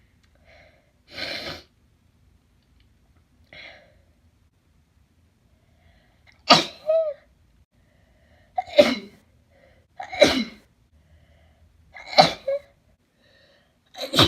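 A person sneezing in a repeated fit of wet sneezes: two soft breathy sounds first, then a run of sharp sneezes about every two seconds through the second half.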